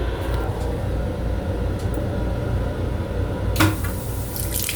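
Steady low rumble inside an M7 railcar restroom, with one sharp click or knock about three and a half seconds in. A hiss of running water from the sink tap starts near the end.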